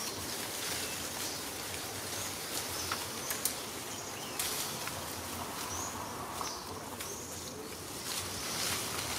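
Outdoor tree-canopy ambience: a steady hiss, with a few faint high chirps around the middle and scattered light clicks and rustles.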